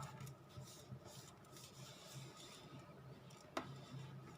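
Faint rustling and rubbing of paper being pressed and smoothed down by hand, with one light tap about three and a half seconds in.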